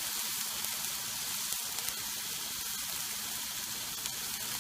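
Parmesan-crusted cod loins sizzling steadily on the hot plates of a T-Fal OptiGrill electric contact grill as they cook.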